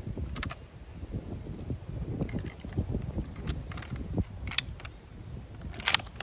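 Metallic clicks and rattles from handling a Carcano cavalry carbine and its clip of 6.5×52 cartridges, with the sharpest click near the end. A low wind rumble runs underneath.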